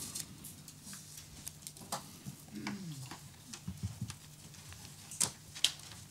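Quiet room noise: scattered small clicks and rustles, with two sharper clicks about five seconds in, and a short low falling hum of a voice near the middle.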